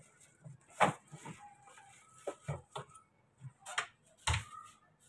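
A handful of short, sharp clicks and knocks, about six scattered over a few seconds, with quiet in between.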